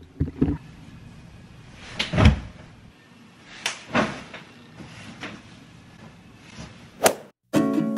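A handful of hand slaps and thumps from swatting at flies, the loudest about two seconds in and a sharp smack near the end. After a brief silence, guitar music starts just before the end.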